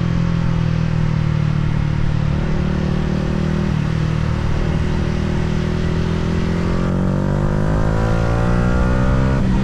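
Yamaha R125's single-cylinder 125cc four-stroke engine running under way, with wind rush. The engine note holds fairly steady, then climbs steadily from about seven seconds in, with a brief break shortly before the end.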